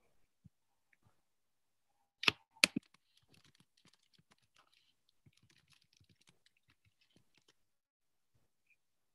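Typing on a computer keyboard, picked up by a laptop or headset microphone: two sharp clicks a little over two seconds in, then a run of light, quick key taps that stops about two seconds before the end.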